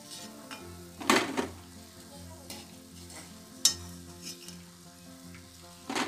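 Pakoras sizzling in hot oil in a steel kadai while a slotted metal skimmer scrapes and clinks against the pan, with sharp clinks about a second in, midway and at the end as the fritters are lifted out. Soft background music sounds underneath.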